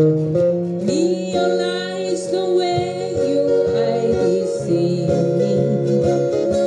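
A small group of guitars, mostly acoustic, strumming and picking a slow country-pop song, with a melody line coming in over the chords about a second in.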